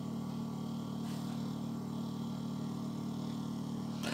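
Steady low machine hum of several even tones with faint hiss above: room background noise while the microphone records the desk.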